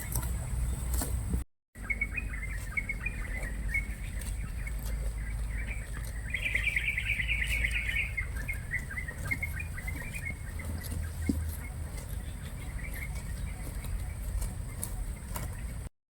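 A bird calling in a wavering, chirping line, breaking into a fast run of repeated chirps partway through, over a steady low rumble. The sound drops out briefly twice.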